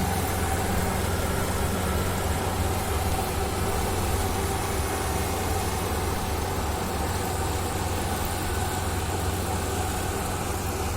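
Engine of a rice-harvesting machine running steadily, a low, even hum.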